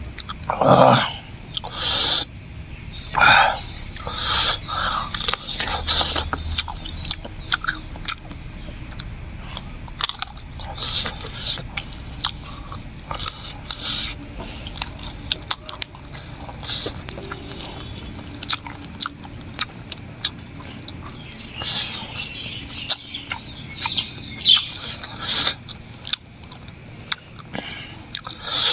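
Close-up eating sounds: wet chewing, lip smacks and crunching bites, many short clicks with a few louder bursts.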